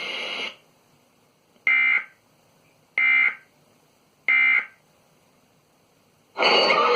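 Emergency Alert System end-of-message data tones: three short, identical buzzy digital bursts about a second and a half apart, marking the close of the severe thunderstorm warning broadcast. Music with guitar starts near the end.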